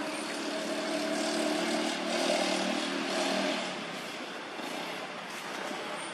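A motor vehicle engine running steadily, growing louder a second or two in and dropping away after about three and a half seconds.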